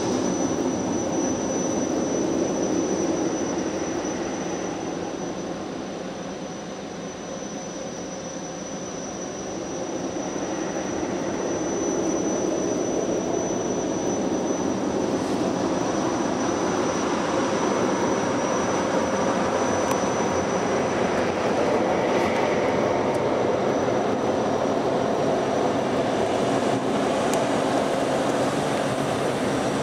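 Christ rollover car wash gantry working over the car, heard from inside the cabin: a steady rush of water spray and machinery with a thin high whine. It dips in level for a few seconds early on, then rises again.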